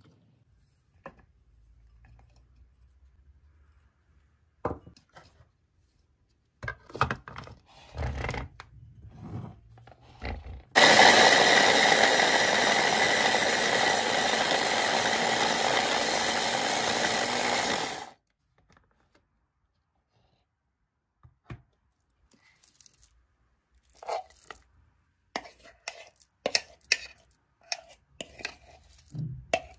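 Electric mini chopper running steadily for about seven seconds, its blade grinding raisins into a paste, starting and cutting off suddenly. Before it come a few knocks as the bowl and lid are handled; after it, light clinks and scraping as the sticky paste is scraped out of the plastic bowl.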